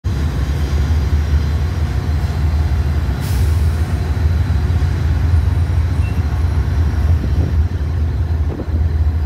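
Diesel freight locomotives approaching, their engines a steady low rumble, with a brief sharp hiss about three seconds in.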